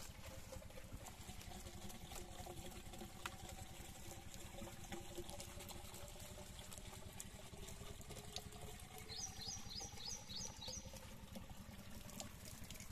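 Water pouring and trickling from a plastic jerrycan into a diesel-engine water pump, priming the pump before it is started.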